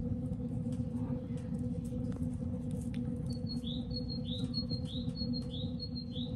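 Steel pot of porridge humming steadily as it cooks on the stove, a low even drone. From about halfway a bird chirps repeatedly, about once every half second, over a thin high whistle.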